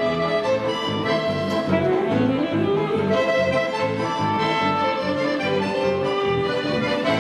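Background music: orchestral strings led by violin, with held melody notes over a pulsing low accompaniment.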